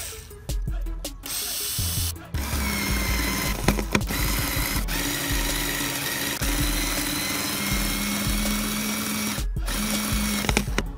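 Cordless drill-driver running slowly as it draws a hollow-wall anchor tight, so that the anchor's legs spread behind the board. The motor whine starts about two seconds in, rises a little in pitch, and breaks off briefly near the end before starting again.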